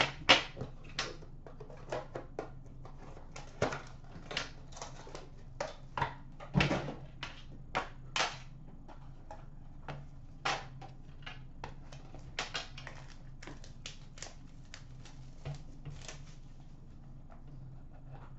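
Hands unwrapping and opening a sealed hockey card box: plastic shrink wrap crinkling and tearing, then the cardboard box and metal-clasped tin being handled, in irregular clicks, taps and rustles over a faint steady hum.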